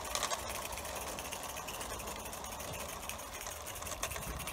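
Vintage Bassett-Lowke Enterprise 0 gauge live-steam 4-4-0 model locomotive running under steam while hauling four coaches, its exhaust chuffing in a rapid, even patter.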